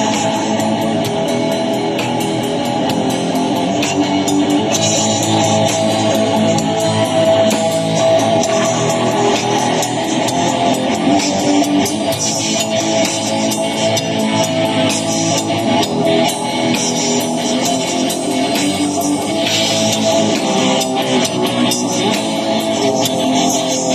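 Live metal band playing: electric guitars over a drum kit, loud and continuous.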